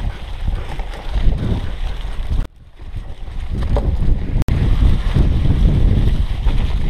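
Wind rushing over a GoPro Hero 3's microphone together with the low rumble of a cyclocross bike riding fast over a leaf-covered dirt trail. The noise drops away briefly about two and a half seconds in.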